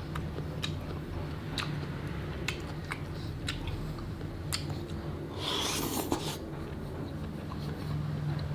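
Close-miked eating of chicken feet: scattered sharp mouth clicks and smacks over a steady low hum, with a longer noisy slurp about five and a half seconds in.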